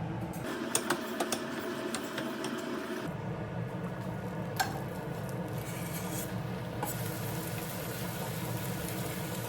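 Kitchen cooking sounds: a utensil clicking and scraping in a pot or pan over a steady hum. The clicks are busiest in the first few seconds, and the background changes abruptly twice.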